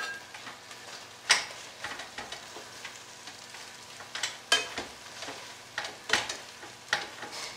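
Shrimp sizzling in a simmering electric skillet of pasta and sauce, with steady frying hiss. A spatula scrapes and clacks against the pans several times as the shrimp are pushed out of a small frying pan and stirred in.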